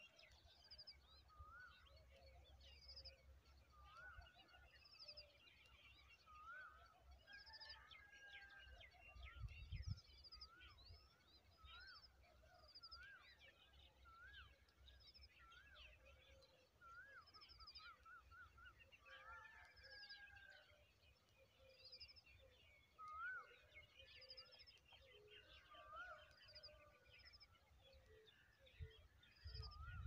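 Faint outdoor chorus of small birds calling. One short rising note repeats about once a second, mixed with quick high trills and scattered chirps. A low rumble runs underneath and swells briefly about ten seconds in.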